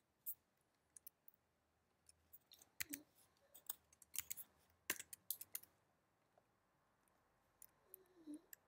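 Faint, scattered clicks of a computer mouse and keyboard, coming in quick clusters around the middle.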